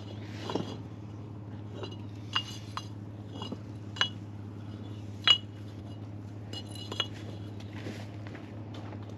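Red clay bricks clinking against one another as they are lifted off a brick pile: a handful of sharp, ringing clinks, the loudest about five seconds in.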